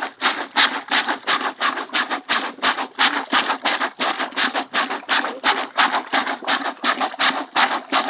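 Homemade bottle-plunger hand washer pumped up and down in a bucket of rinse water and clothes, a fast, even rhythm of wet splashing strokes, about five a second.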